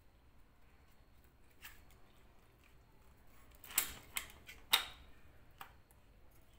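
Sharp metallic clicks and knocks as a motor armature is seated in a washing-machine motor housing and the parts are handled: about five scattered clicks, the two loudest a second apart past the middle.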